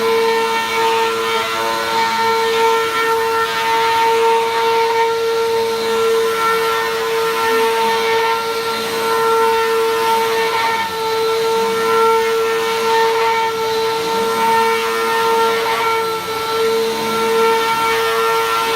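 Vacuum cleaner running steadily over a rug: a constant high motor whine over the rush of air through the cleaner.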